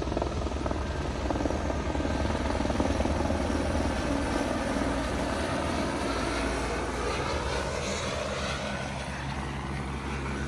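Helicopter engine and rotor running, a steady mechanical noise with a low hum underneath.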